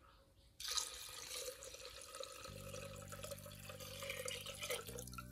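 Liquid poured in a stream from a plastic bowl into a clay pot, splashing. It starts suddenly about half a second in and stops near the end.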